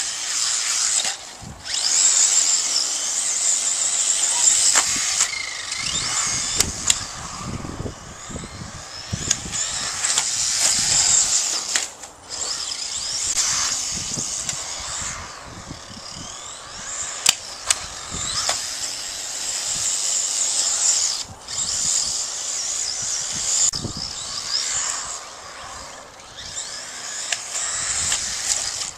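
Team Associated B4.1 electric RC buggy driving: a high-pitched whine from its electric motor and gears that rises and falls as the throttle comes on and off, with tyre noise and a few sharp knocks as it bumps and crashes.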